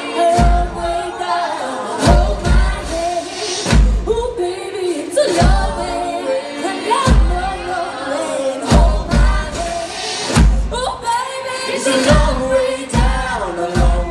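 Live band performance: several voices singing together in harmony over a beat of deep, heavy thuds that come in short groups.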